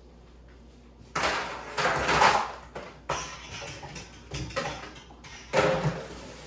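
Kitchenware being handled and set down on a counter: a run of clattering knocks in the first few seconds, then a few shorter knocks.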